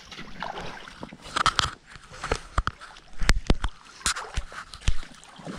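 Shallow stream water sloshing and splashing around a landing net held in it, with scattered sharp clicks and knocks.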